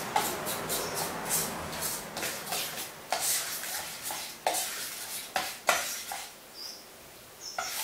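Spoon stirring and beating flour batter in a stainless steel bowl: quick scraping strokes and clinks of metal on metal. The stirring stops about six seconds in, with one last clink near the end.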